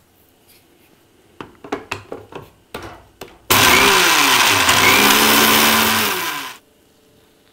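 A few knocks and clicks as the jar is set on a small Indian mixer grinder (mixie). About halfway through, the motor runs loudly for about three seconds, grinding dry-roasted sesame seeds with salt to a coarse powder, then stops.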